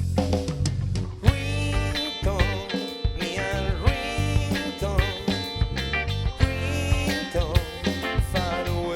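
A band playing an instrumental passage of a pop-rock song, with guitar, bass and drums. A lead melody with wavering, bending pitch comes in over it about a second in.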